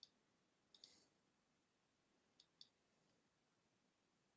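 A few faint computer mouse clicks, short and spaced apart, over near silence.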